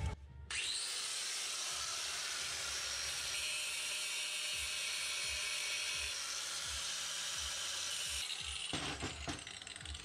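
Angle grinder starting up and grinding steel: the worn teeth of a two-stroke scooter's kick-start ratchet are ground down to restore their grip. It runs steadily for about eight seconds, then is switched off near the end, its whine falling as the disc spins down.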